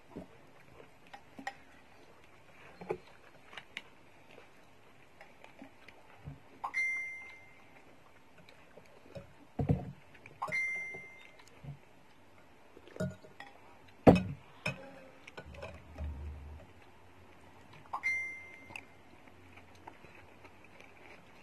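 Metal spoon and fork clinking and scraping against a ceramic soup bowl during eating, with three clinks that ring out clearly and a couple of louder dull knocks.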